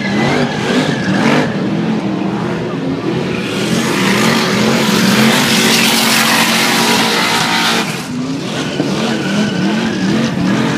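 Car engine held at high revs in a burnout, the revs swinging up and down about twice a second while the spinning rear tyres squeal and skid. From about four seconds in, a louder hissing rush of tyre noise swells for several seconds, then the rev swings come back to the fore.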